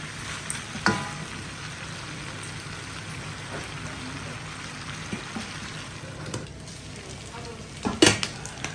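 Pork belly cubes sizzling steadily in their own rendered fat in a steel wok. A metal ladle clacks against the pan about a second in, and again several times near the end.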